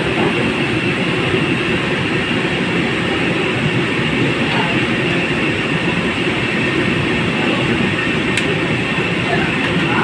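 Steady, loud rumbling noise with no rhythm and no change in level, with one faint click near the end.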